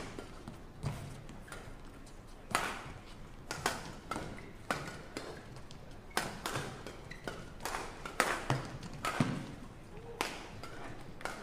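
Badminton rackets striking a shuttlecock in a fast doubles rally: a string of sharp hits about a second apart.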